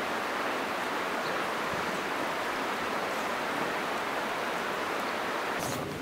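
Shallow creek running over a gravel and cobble bed: a steady rushing of water. Near the end it gives way abruptly to light footsteps on a forest path.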